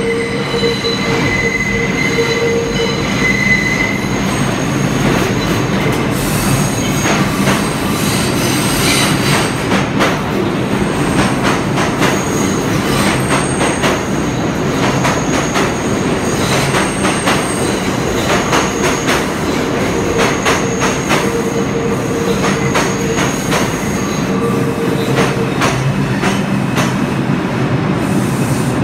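R142-family New York City subway train pulling into the station, its wheels squealing against the rails in long, steady high-pitched tones over the rumble of the cars, with rapid clicking of wheels over rail joints, heaviest in the first half.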